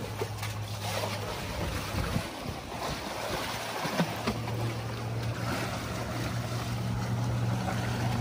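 African elephant wading and splashing through shallow river water close by, water sloshing around her legs and trunk. Under it is the steady low hum of an idling boat motor, which drops out for a couple of seconds early on and then resumes.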